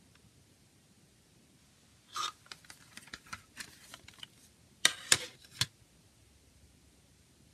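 Plastic CD jewel case clicking and clacking as it is handled and opened: a scatter of light clicks from about two seconds in, then three sharp clacks around five seconds in.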